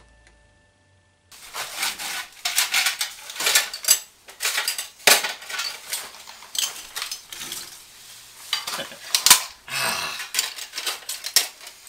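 Loose nails, screws and small metal hardware clinking and rattling as they are rummaged through by hand, a dense run of irregular small metallic clicks starting a little over a second in.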